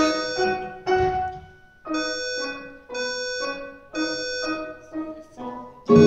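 Grand piano playing a string of separate jazz chords, each struck and left to ring out briefly before the next, with short gaps between them.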